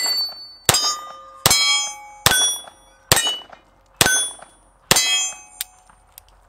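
Bersa Thunder 380 pistol firing .380 ACP rounds in steady succession, about seven shots a little under a second apart. Each shot is followed by the ringing of a hit steel plate target. The shooting stops about five seconds in.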